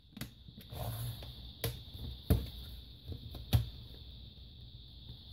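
Plastic trim on an HP Pavilion dv6 laptop, the hinge cover above the keyboard, being pressed into the case and snapping into place: handling rustle broken by about three sharp clicks, the loudest about two and three and a half seconds in.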